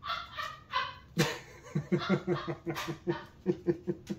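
Pet dog barking in a quick run of short barks, about four a second, starting about a second in.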